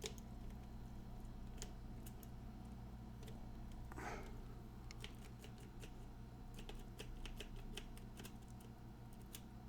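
Faint, irregular small metallic clicks of a tubular lock bypass tool being worked into a pill container's tubular lock. The clicks come more often in the second half, over a steady low hum.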